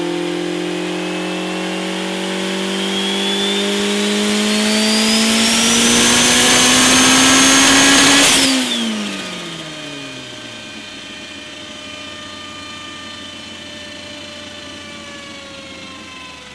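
Turbocharged Mitsubishi EVO9 4G63 four-cylinder drag engine making a pull on the dyno, its pitch and a high whine climbing steadily for about eight seconds. About eight seconds in, the throttle is lifted sharply and the revs drop away, leaving a quieter, slowly falling run-down.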